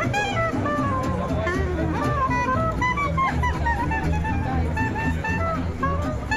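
Jazz-style music: a melody line of bending notes over a steady bass.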